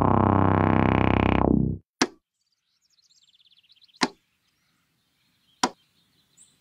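Synthesizer music that cuts off suddenly a little under two seconds in, followed by three short sharp hits, spaced about two seconds apart, in otherwise near silence; a faint ticking rises just before the second hit.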